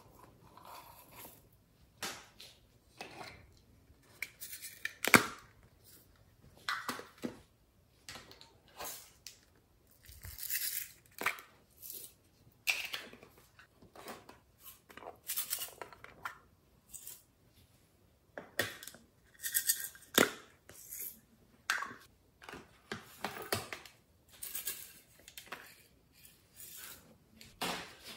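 Glitter, sequins and confetti shaken and tipped out of small plastic cases onto slime in a glass tray: irregular rustles and taps, one or two every second or so.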